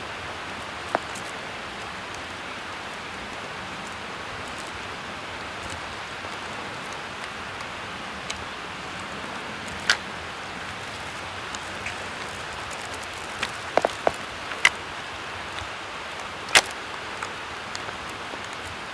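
Steady hiss of a quiet woodland, with a few sharp crackles scattered through it, most of them in a cluster about two-thirds of the way in, like dry leaves and twigs being stepped on.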